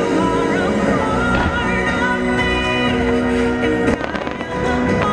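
Fireworks show soundtrack music playing loudly, with a few sharp firework pops and crackles about four seconds in.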